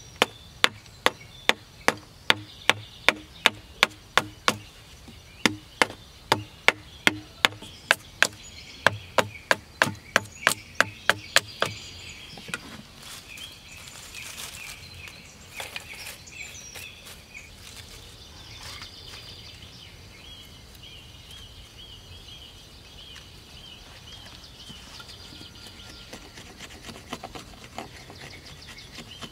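A hatchet chopping a green bamboo pole in quick, sharp blows, about three a second, pausing briefly around five seconds in and stopping near twelve seconds. After that comes softer rustling of dry bamboo shavings gathered by hand.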